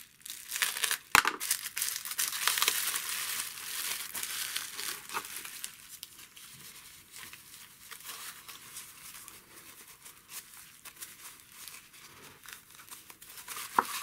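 Bubble wrap and thin plastic wrapping crinkling as hands unwrap a small part. The crackling is busiest over the first few seconds, with a sharp click about a second in, then goes on more softly.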